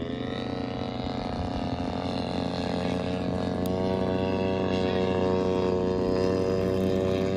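Radio-controlled model airplane's motor and propeller in flight, one steady pitched drone that rises in pitch at the start, then holds its pitch and grows louder as the plane comes nearer.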